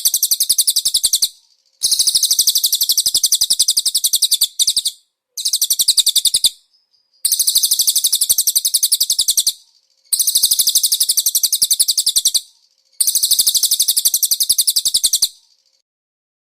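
Cililin bird singing: very rapid, high-pitched trills delivered in about six bouts of one to three seconds each, separated by short pauses, stopping about a second before the end.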